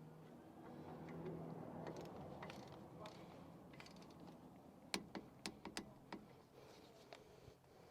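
Faint clicks and light metallic taps of hand tools at work, with a quick run of sharp clicks about five to six seconds in, over a low steady hum.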